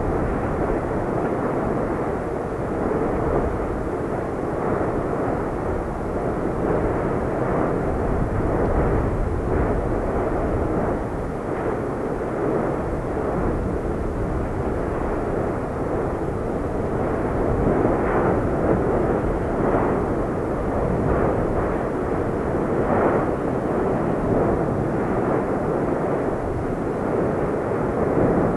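Lava fountains at an erupting fissure vent, spattering and bubbling in a continuous rushing noise, with a few brief louder bursts.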